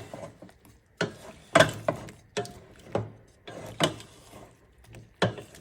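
Kitchen utensils clicking and knocking against cookware, several sharp knocks at irregular intervals, as a soft simmered orange is squeezed for its juice.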